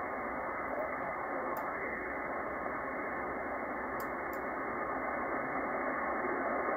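Receiver audio from a FlexRadio SDR on a 20-metre single-sideband channel: a steady hiss of static and hash, cut off above the narrow receive filter, with the weak station buried in it. A few faint clicks sound from the mouse working the AGC threshold slider, two of them close together about four seconds in.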